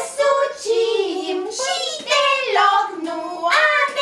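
A high-pitched voice singing a song, its notes gliding up and down with short breaks between phrases.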